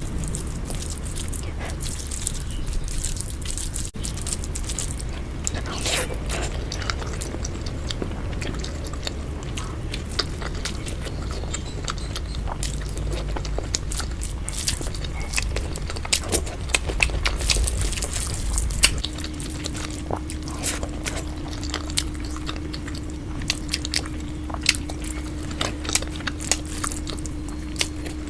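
Close-miked mukbang eating sounds sped up to double speed: crunchy bites and quick chewing, many sharp crunching clicks one after another. A steady low hum comes in about two-thirds of the way through.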